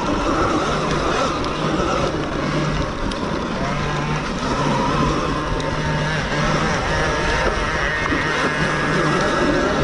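Sur-Ron 7 kW electric dirt bike being ridden: the whine of its electric motor rises and falls with the throttle over a steady rushing noise.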